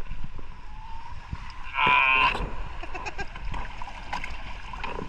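A short, high-pitched vocal cry about two seconds in, lasting about half a second. Scattered small knocks and splashes are heard around it, over a low rumble.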